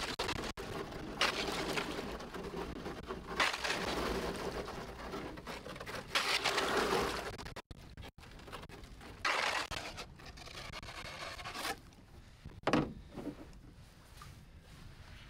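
Thin skim ice, about a sixteenth of an inch thick, crackling and scraping against a canoe hull as the boat is paddled slowly through it. It comes in several surges of a second or two each, with a sharper crunch near the end.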